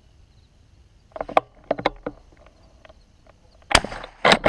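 Two shotgun shots about half a second apart, near the end.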